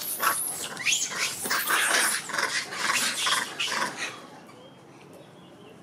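Several macaques calling together, a rapid run of harsh, high-pitched calls for about four seconds that then stops.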